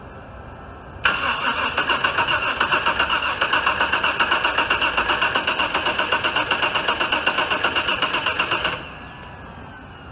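Starter motor cranking the 2003 Audi A4's 3.0-litre V6 in a rapid, even pulse for about eight seconds, then cutting off suddenly without the engine catching. This is the first start attempt after a broken timing belt and a cylinder-head rebuild.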